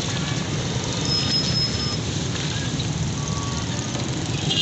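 Steady din of street traffic, with a brief high tone about a second in.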